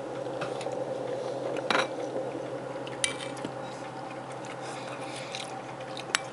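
Metal spoon clinking against a ceramic soup bowl, a few sharp clinks with the sharpest near the end, along with quiet chewing of soup. A steady low hum sits underneath.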